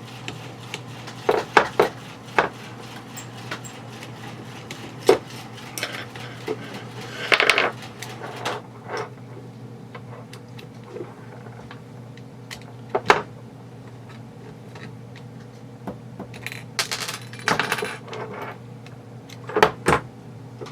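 Metal and plastic airsoft rifle parts handled and test-fitted into the receiver: scattered sharp clicks, clinks and knocks, with longer scraping rattles about 7 seconds in and again near 17 seconds.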